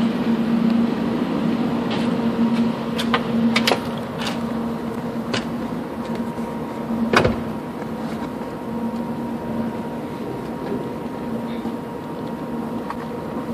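Steady low hum with scattered clicks and knocks, the loudest about seven seconds in: the handling noise of a cable being pressed along a car's door-sill trim.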